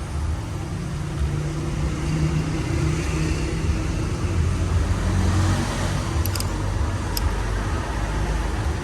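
Steady low engine drone, with a few light clicks around six to seven seconds in.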